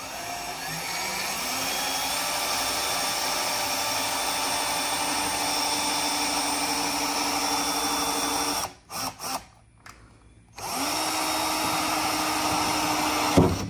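Power drill boring a hole through a car's trunk lid for a rear wing mount. It spins up and runs steadily for about nine seconds, then stops after a few short blips. It spins up again and runs for about three more seconds.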